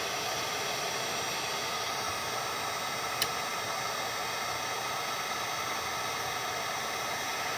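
Wagner heat gun blowing a steady rush of hot air onto a laptop circuit board, melting the solder that holds a jack. A single short click about three seconds in.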